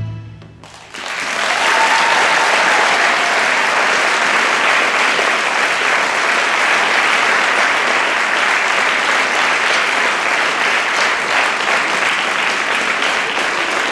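Recorded music ends and its last sound dies away, then an audience breaks into steady applause about a second in and keeps clapping.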